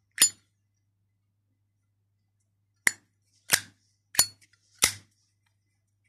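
Black matte Zippo lighter's hinged metal lid clicking open and snapping shut: five sharp metallic clicks with a brief ring, one just after the start and four close together in the second half.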